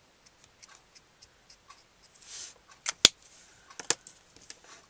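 Copic marker brush tip flicking quick short strokes on cardstock, a run of light ticks about three or four a second. Then a brief rustle and two sharp clicks about three seconds in, the loudest sounds, and a couple more clicks a moment later as the marker is put down.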